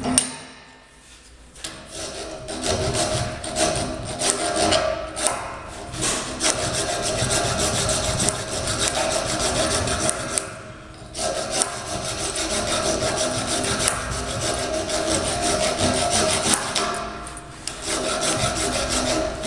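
A bastard-cut rat-tail hand file rasping back and forth on soft pot metal clamped in a vise, in steady strokes. The filing breaks off briefly about ten seconds in and again near the end. A single sharp metallic click opens the sound.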